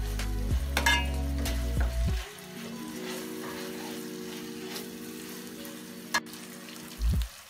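Onions, green chillies, tomato and ginger paste sizzling as they fry in oil in a steel pan, stirred and scraped with a steel spoon that clinks against the pan. There is a short, loud knock near the end.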